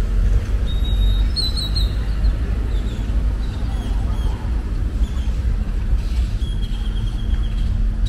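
Street traffic: a steady low rumble and hum of idling and passing vehicle engines, including a minibus, with a few short high chirps about a second in and again near the end.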